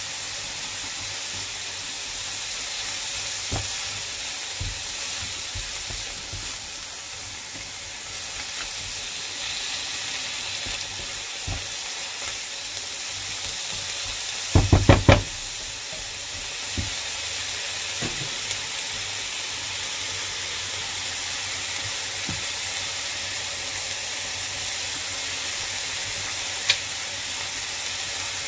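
Chopped greens and onion sizzling steadily in a non-stick frying pan while being stirred with a spatula. About halfway through there is a quick run of about five knocks, the spatula against the pan, with a few single taps elsewhere.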